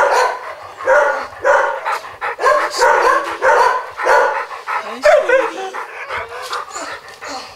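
Dogs barking repeatedly, about two barks a second, with a higher, wavering whine-like cry about five seconds in.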